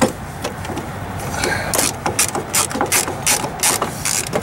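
Ratcheting screwdriver clicking about three times a second, starting a second and a half in, as it drives in a T20 Torx screw holding a tail-light assembly. A single knock right at the start.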